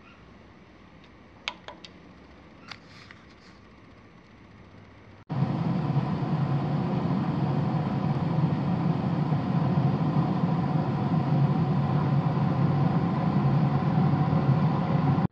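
Faint room sound with a few light clicks, then about five seconds in a smoking grill's steady running noise cuts in suddenly: a loud, even hum with a few steady tones over it.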